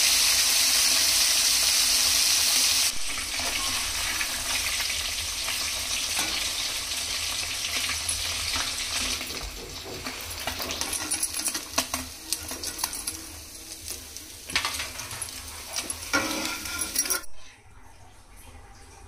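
Small fish frying in hot oil in a pan: a loud, even sizzle for about the first three seconds, then a softer sizzle. Through the softer part, a utensil stirring in the pan makes repeated clicks and scrapes. The sizzle drops away suddenly near the end.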